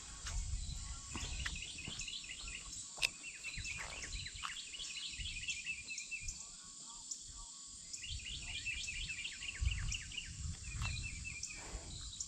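A bird singing two runs of quick, repeated chirping notes, one starting about a second in and another about eight seconds in, over a faint low rumble.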